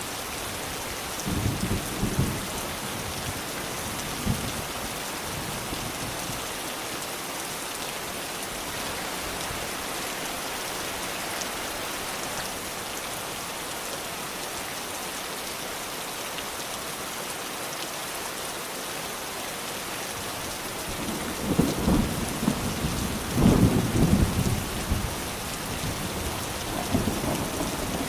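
Steady rain falling, with low rumbles of thunder: a short one near the start and a longer, louder roll in the last third.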